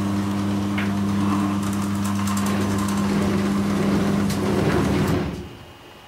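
LiftMaster 5580 electric garage door opener running, humming steadily with clicks and rattles as it drives a canopy door up on its arm. It stops suddenly about five seconds in as the door reaches the open position.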